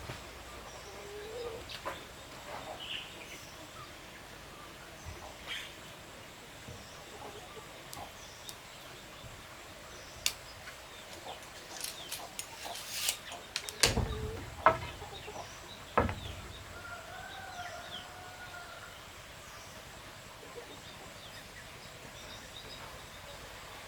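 Chickens clucking and calling now and then, with scattered knocks and clicks; the loudest knocks come in a cluster about twelve to sixteen seconds in, and a wavering call is heard shortly after.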